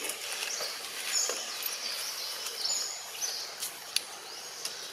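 Outdoor woodland ambience: a steady hiss with high-pitched chirping calls that rise and fall and repeat every second or so. A sharp click comes about four seconds in.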